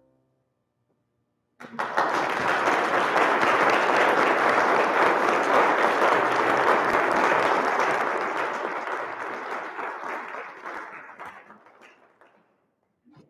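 Audience applauding after a short silence: the clapping starts suddenly about a second and a half in, holds steady, then dies away over the last few seconds.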